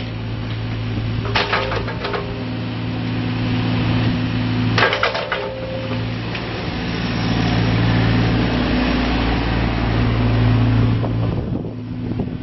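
Bobcat E35 mini excavator's diesel engine running under hydraulic load as the boom, arm and bucket move, growing louder for several seconds in the second half. Two short bursts of rapid clicking or rattling come about a second and a half and five seconds in.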